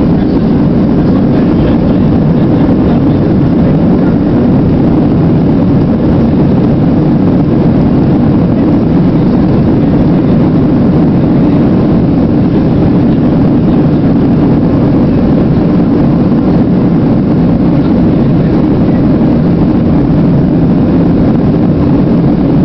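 Loud, steady rumble of a Boeing 737's jet engines and airflow, heard inside the passenger cabin as the airliner moves along the ground on departure.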